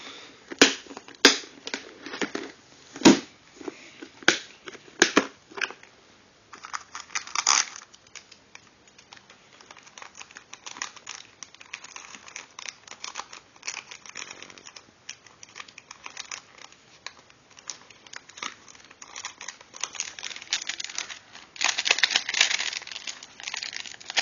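Plastic protective baggies around toy cars crinkling and rustling as they are handled in a clear plastic storage case. There are several sharp clicks in the first few seconds, and a louder stretch of crinkling near the end.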